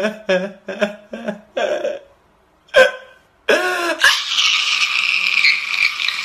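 A man sobbing in short gasping bursts, about three a second, then after a brief pause breaking into one long, strained, loud wail.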